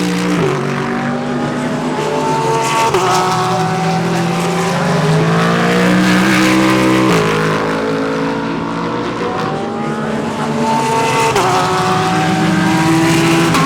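Several GT3 race cars running through a corner and accelerating away, their overlapping engine notes climbing in pitch and dropping sharply at each upshift.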